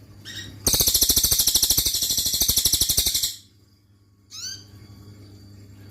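Cililin songbird singing: a loud, rapid, high trill lasting about two and a half seconds, then a short rising call note about a second after it stops.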